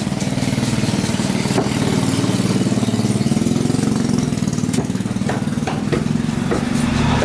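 An engine idling steadily, a low pulsing drone. About two thirds of the way in come a few sharp knocks of a cleaver striking the wooden chopping block.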